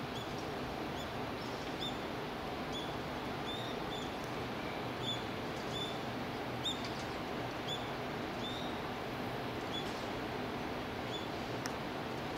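Short high bird chirps repeating irregularly, roughly one or two a second, over a steady outdoor background hiss.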